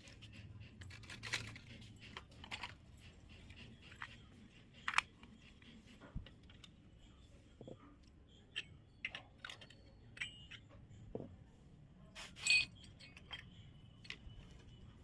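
Small plastic toy kitchen pieces being handled: scattered light clicks and taps, with one louder, brief noise about twelve seconds in.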